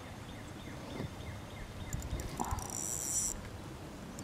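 A high-pitched, finely pulsed insect trill starts about two seconds in and cuts off sharply after about a second and a half. Underneath it, faint short high chirps repeat evenly throughout.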